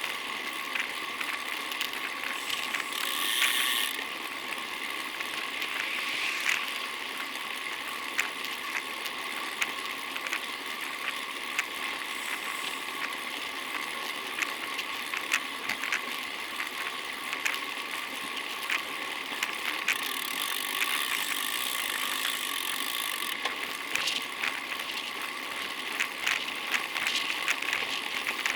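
Road bicycle on the move: a freewheel's fast ratchet ticking while coasting, over steady road and wind hiss, with louder stretches of hiss about three seconds in and around twenty seconds in.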